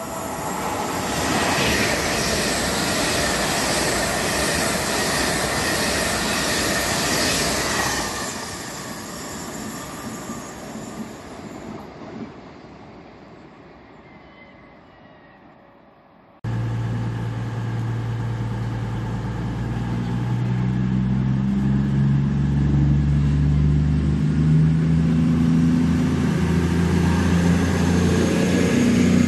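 LNER Azuma train passing through at speed, a loud rushing of wheels on rail that fades away over several seconds. After a sudden cut, the underfloor diesel engines of a Cross Country Voyager multiple unit are running, with a low hum that rises in pitch and loudness as the train pulls out.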